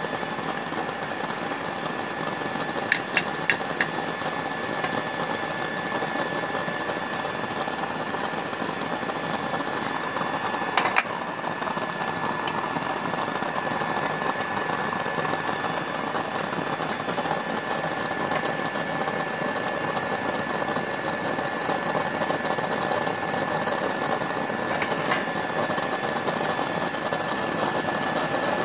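Used-oil stove burner running with a steady rushing noise and a thin, steady high whine. Sharp metal clinks cut in as the burner's lid is handled with a metal rod: three quick clinks about three seconds in, another near eleven seconds, and one more near twenty-five seconds.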